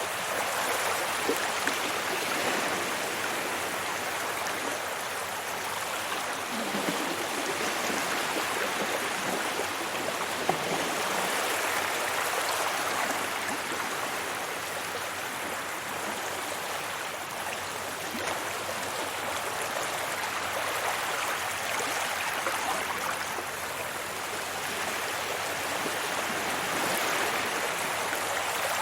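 Sea waves washing onto a beach: a continuous rush of surf that swells and eases slowly every several seconds.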